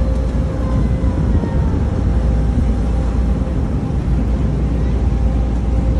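Passenger ferry underway, heard from its open deck: a steady low engine rumble mixed with a rush of wind and water.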